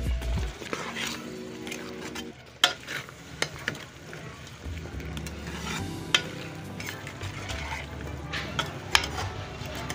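A spoon stirs cauliflower and potato pieces frying in oil and spice masala in a metal pot, scraping over a light sizzle. The spoon knocks sharply against the pot several times, loudest about two and a half seconds in and near the end. The vegetables are being fried in the masala before water goes in.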